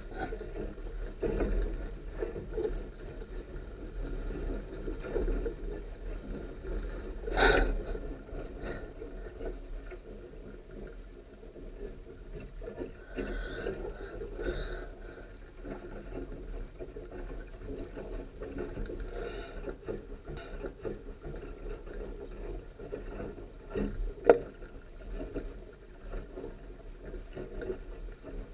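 Water rushing and slapping along a Sunfish sailboat's hull as it sails heeled over, with wind rumbling on the mast-mounted microphone. Two sharp knocks stand out, one about seven seconds in and a louder one late on.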